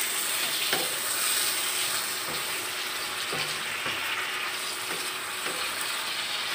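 Chicken pieces with onion and ginger sizzling in oil in a non-stick frying pan. A wooden spatula stirs them, giving several soft knocks and scrapes against the pan.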